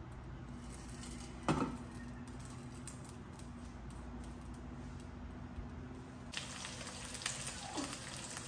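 A bagel half laid into a dry nonstick frying pan with one short knock about a second and a half in, over a low steady hum. About six seconds in, an egg frying in hot oil starts sizzling, with many small crackles and pops.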